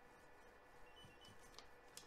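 Two short, faint high beeps about a second in, a third of a second apart: the 3D printer's touchscreen buzzer answering two taps on the Z-offset down arrow. A few faint ticks sound over a near-silent background.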